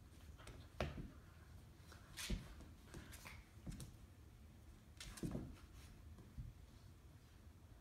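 An American Eskimo puppy and a Finnish Spitz play-fighting on a hard floor: scattered scuffles and soft thumps of paws and bodies, about half a dozen short sounds with the loudest a little past two seconds in.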